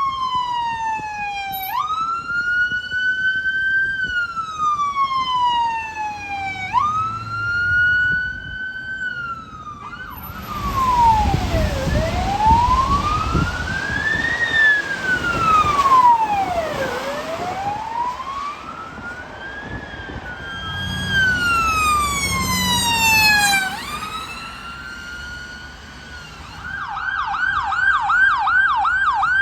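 Emergency vehicle sirens. First a slow wail rising and falling every few seconds. Then a wail with a wider, deeper sweep heard over loud engine and road noise. Near the end a fast yelp, about four sweeps a second.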